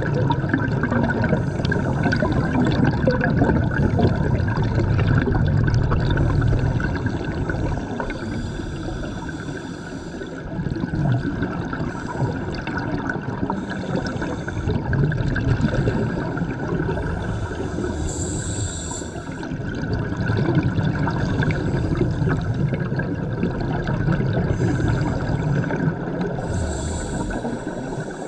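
A scuba diver's regulator and exhaled bubbles heard underwater: a continuous gurgling rush that swells and eases every few seconds, with a brief hissy burst twice.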